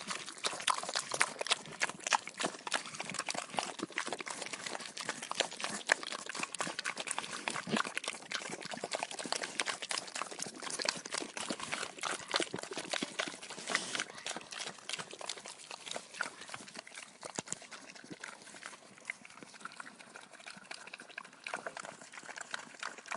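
Pigs eating: a dense run of quick, irregular chewing clicks and smacks, thinning out near the end.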